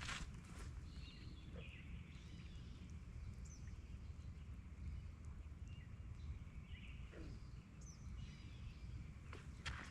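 Scattered short bird calls over a steady low rumble, with a few sharp clicks near the start and again near the end.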